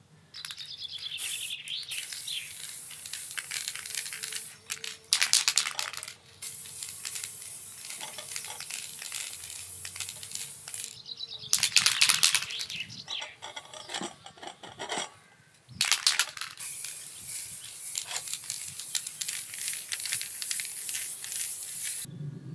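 Aerosol can of clear protective lacquer spraying in long hissing bursts that cut off abruptly, with short rattling clatters between them.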